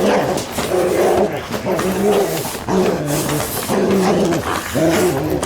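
A dog vocalizing in a run of drawn-out, pitched calls, about one a second.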